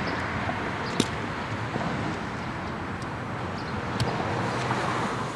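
Steady outdoor street noise with a low traffic rumble, and a sharp click about a second in.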